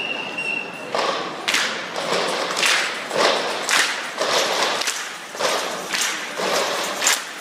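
Group body percussion: many performers striking a steady rhythm together, about two thumps a second.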